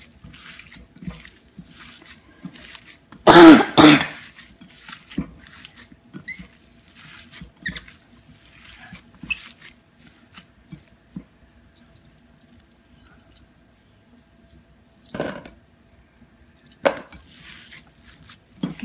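Raw ground meat being kneaded by a hand in a disposable plastic glove in an enamel bowl: soft, irregular wet squishing. A short, much louder sound comes about three and a half seconds in, and two smaller ones near the end.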